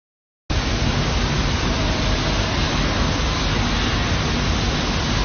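Water rushing through a stainless-steel vertical self-cleaning water filter: a steady, loud rushing noise that starts abruptly about half a second in, with faint steady hums under it.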